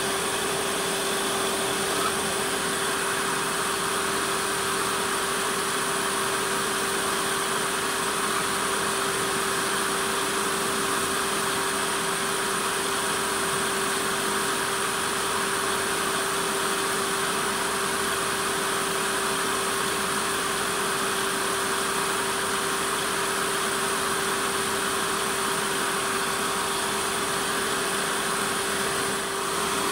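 Wood lathe running steadily with a constant hum, while a lathe knife cuts into a small spinning spindle.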